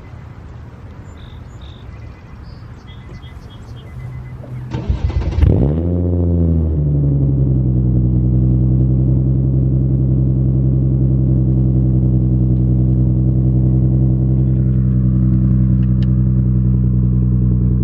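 Infiniti G37 sedan's V6 being cranked and starting about five seconds in, flaring briefly in revs, then settling into a steady idle through a new RZG single-exit exhaust. A few short electronic beeps sound before the start.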